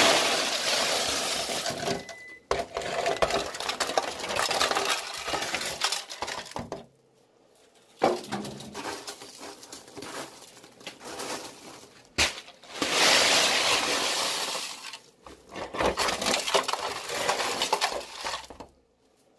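Crunchy baked, candy-coated popcorn pouring out of a foil pan into a plastic tub and being pushed around by hand. It makes a dry rattling, crackling rustle in several spells broken by short pauses. The crispness of the rattle is the sign that the coating has baked hard.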